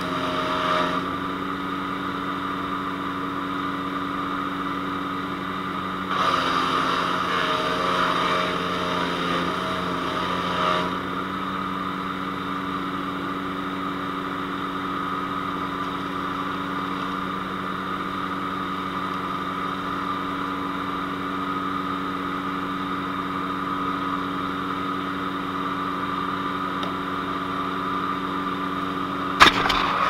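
Small gasoline engine of a PowerKing PK0915 5-inch self-feed wood chipper running steadily. About six seconds in, for roughly five seconds, it grows louder and hissier and its note dips, as a load of brush goes through the blades. A burst of sharp cracks near the end.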